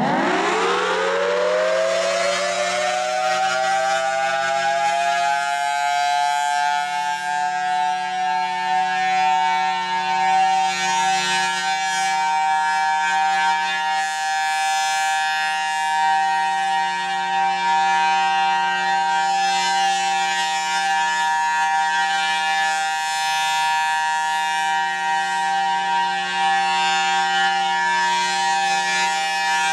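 Federal Signal Thunderbolt 1000T siren winding up from a low pitch to its full steady alert tone over the first few seconds, then holding that tone as the horn rotates, the level gently swelling and dipping. This is the steady alert signal of a monthly test.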